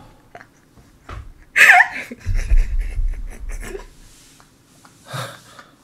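Laughter in short scattered bursts, with a low rumble underneath partway through.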